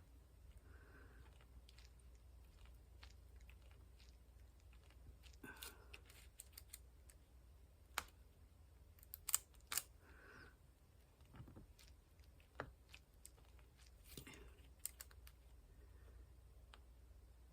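Near silence with faint, irregular small clicks and taps: a diamond painting drill pen picking up square resin drills and pressing them onto the canvas, with a quick pair of sharper clicks about nine to ten seconds in.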